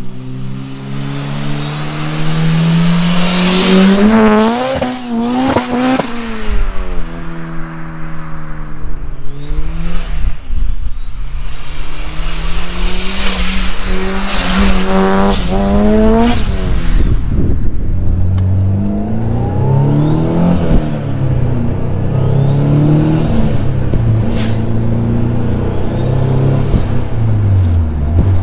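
Turbocharged Honda Civic EG6 1.6-litre VTEC four-cylinder with a GT3076 turbo, pulling hard three times with the engine note climbing and a turbo whistle rising high above it; the pitch drops between pulls. From about two thirds in, it runs at lower revs in short throttle blips, each with a brief whistle.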